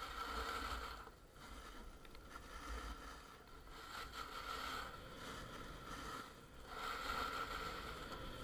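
A snowboard sliding and scraping over snow, the sound swelling and easing in waves of a second or two as the board turns, over a low rumble.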